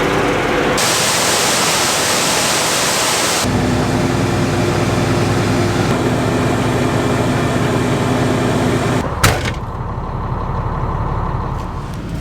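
Diesel engine of an old semi truck running steadily. A loud hiss of air lasts about three seconds near the start, and about nine seconds in there is a sharp bang, after which the engine sounds quieter.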